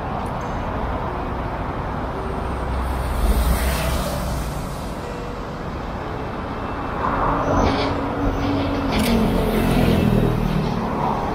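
Road traffic running steadily, with vehicles swelling louder as they pass about three seconds in and again from about seven to ten seconds.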